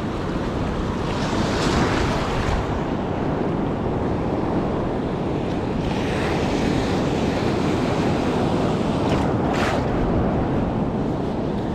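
Sea surf breaking and washing up a beach, with wind on the microphone. The wash swells a few times and gives a short, sharper hiss late on.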